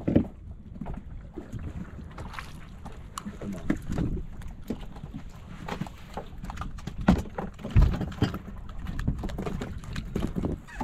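Small fishing boat at sea: a steady low rumble of water and wind around the hull, with scattered knocks and clicks as a handline is hauled in and a barracuda is brought aboard.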